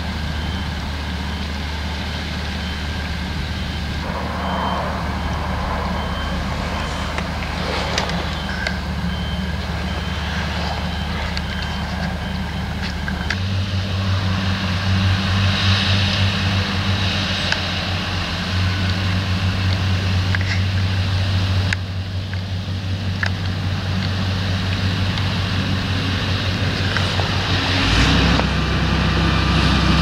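Diesel engines of tractors and potato harvesters running steadily under load, the engine note shifting about halfway through and again near the end. A faint high beep repeats evenly through the first part.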